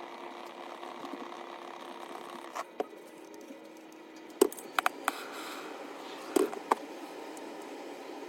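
Sharp clicks and taps from hand tools and wires being handled at a workbench, several of them in quick pairs, over a steady low hum.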